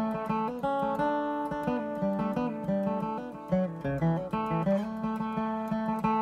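Acoustic guitar played with a flat pick: a steady run of picked single notes and chords over a moving bass line.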